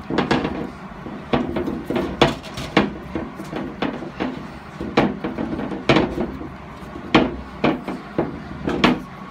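Locking pliers working a broken exhaust manifold stud, built up with MIG weld, out of an aluminum LS cylinder head: irregular sharp metal clicks and clanks as the jaws are clamped, repositioned and twisted on the steel stud.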